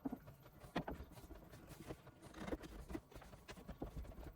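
Wooden chair parts being fitted together at glued joints: a few scattered, irregular light knocks and clunks of wood on wood.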